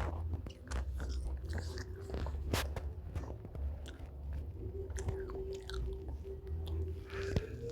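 A person wheezing with laughter close to the microphone: breathy gasps and sharp mouth clicks, with a thin steady tone held for a couple of seconds in the second half.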